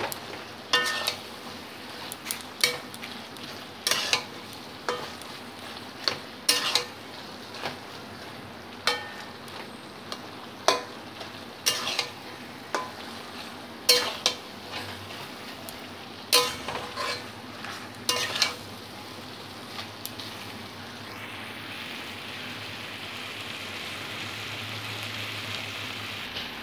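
Flat metal spatula (khunti) scraping and clinking against a wok (kadai) as a mixed-vegetable curry is stirred and broken up, with sharp knocks every second or two over a steady sizzle of the vegetables frying. In the last few seconds the sizzling grows louder.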